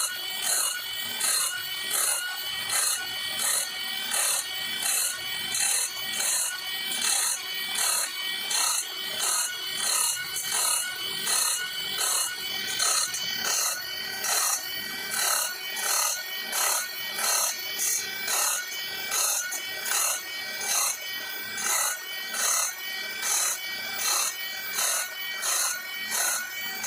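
Electric drill spinning a grinding stone against a bandsaw blade, sharpening the teeth one after another. The grinding comes in a steady rhythm of about one and a half strokes a second, over the drill's whine.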